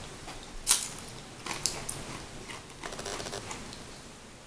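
Small clicks and taps of fingers handling a cheese curl and salsa at a plate, with one sharper click a little under a second in and a few lighter ones after.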